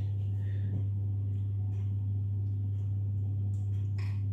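Kitchen cooker-hood extractor fan running with a steady low hum, with a brief clink about four seconds in as the saucepan meets the dish.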